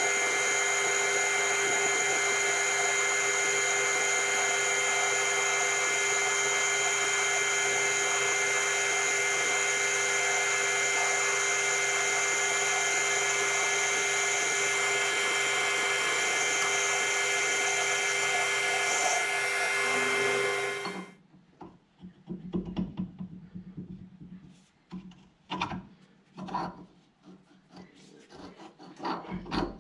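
Metal lathe boring out a metal bush with a boring bar to a fraction over 22 mm: a steady machining sound with a high whine, which stops abruptly about two-thirds of the way through. Then scattered light metallic clicks and knocks as a pin is tried in the fresh bore, which is a bit too snug.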